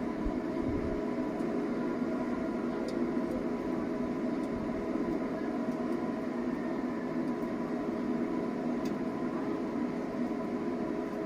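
Electric welding on a very thin tube: a steady, unbroken buzzing hum with a few faint ticks.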